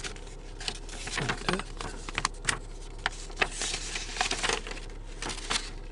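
Irregular small clicks and rustles of something being handled close to the microphone.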